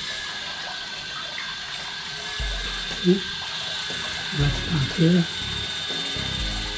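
KF608 Butterfly mini drone hovering: its tiny motors and propellers make a steady high whine. A few short, low, voice-like sounds come about three seconds in and again around five seconds, and these are the loudest moments.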